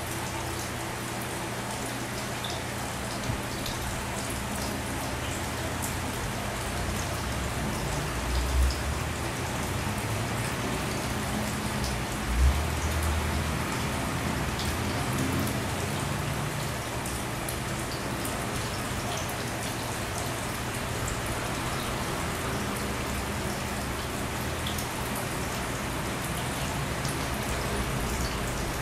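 Steady splashing and trickling of aquarium water, sounding like light rain, with small drips and pops and a low hum underneath. Two dull thumps, about eight and twelve seconds in.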